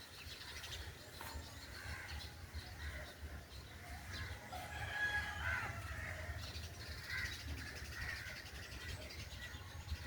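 Birds chirping and calling, many short scattered calls overlapping, with some fowl among them.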